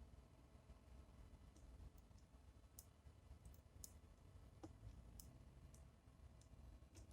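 Faint, irregular sharp clicks, about a dozen scattered over several seconds, over a low rumble: sparrows pecking and cracking seed at a bird feeder.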